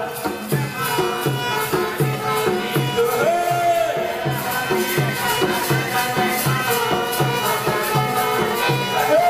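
Live Chhattisgarhi Panthi folk music: a drum keeps an even beat of about two strokes a second, with bright jingling percussion on the strokes under a held, gliding melody line.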